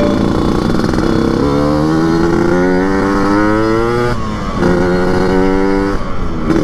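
Yamaha RX King's 135 cc two-stroke single, with a chrome under-belly exhaust and open air filter set up for the throaty 'ngorok' tone, pulling under acceleration on the move. The engine note climbs through a gear for a few seconds, drops briefly at a shift just after the midpoint, holds and climbs again, then breaks once more near the end.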